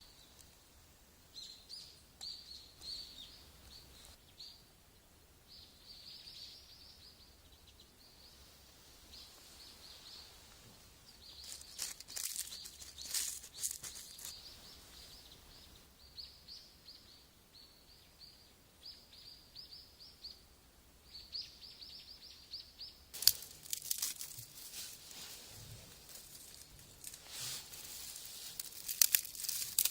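Small birds chirping in quick runs of short high notes, with sharp crackling and crunching briefly around the middle and more densely near the end.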